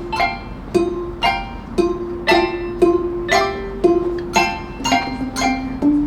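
Handbell choir playing a melody with the bells struck by mallets: ringing notes on a steady beat of about two a second, each note sounding on as the next is struck.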